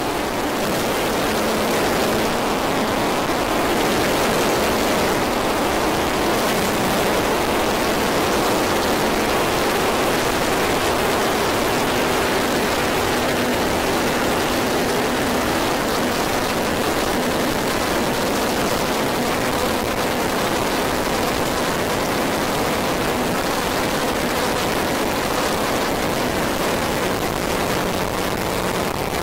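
Synthesized noise drone: a steady, dense wash of hiss and rumble across the whole range, with faint low tones held underneath and no beat or change.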